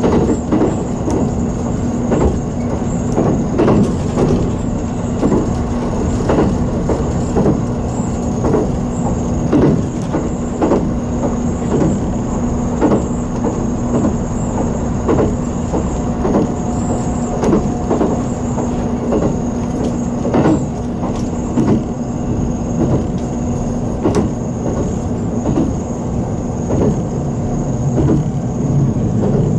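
JR Kyushu 783 series electric multiple unit running between stations, heard from inside the leading car: the wheels click over rail joints about once a second over a steady hum.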